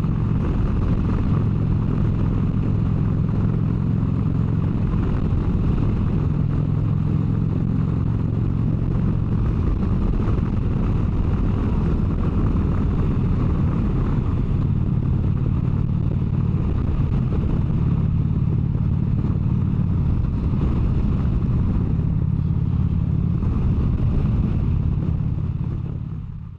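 Harley-Davidson V-twin motorcycle engine running steadily at highway cruising speed, its low note shifting slightly now and then with throttle. It fades out at the end.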